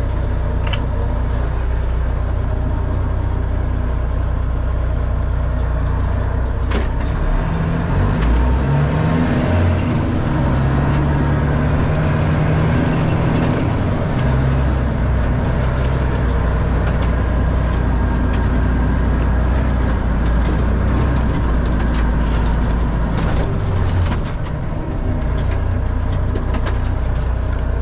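Freightliner FLD semi truck's diesel engine running steadily, its engine speed rising and falling several times a few seconds in and dipping once near the end. A few light clicks sound over it.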